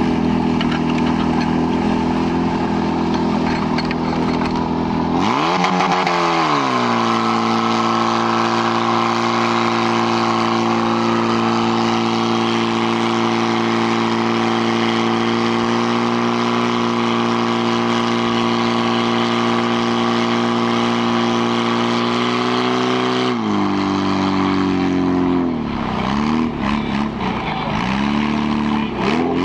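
Portable fire pump's petrol engine in a firefighting-sport fire attack: it runs low for about five seconds, then revs up sharply and holds at high steady speed while it pumps water through the hose lines. It is throttled back about 23 seconds in and wavers near the end.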